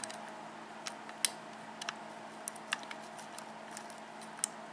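Light, irregular metallic clicks of a pick working the pin stacks of an Abus 72/40 padlock as it is single-pin picked: pins being lifted and set, one at a time.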